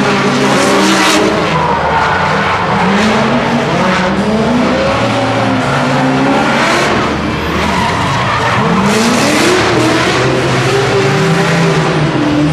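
Drift cars sliding through a corner on the throttle. The engine note climbs and drops again and again, with several surges of tire screech and skidding.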